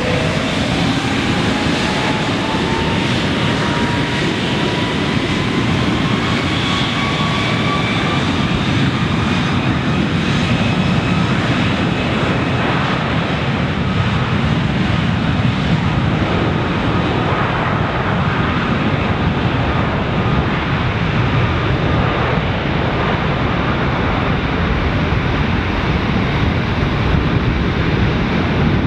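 Airbus A330-200's twin Rolls-Royce Trent 772B-60 turbofans spooling up to take-off thrust: a whine rising in pitch over the first dozen seconds, over a steady loud roar as the airliner accelerates down the runway.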